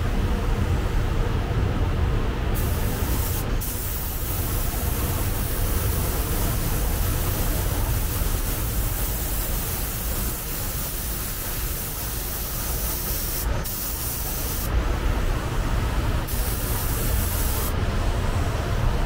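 Compressed air hissing from a shop air gun in triggered bursts: one long blast of about ten seconds starting a couple of seconds in, then two short bursts near the end, over a steady low hum.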